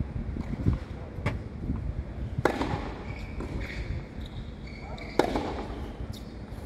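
Tennis rally on a hard court: balls struck with rackets, with two loud hits about two and a half seconds apart among fainter hits and bounces.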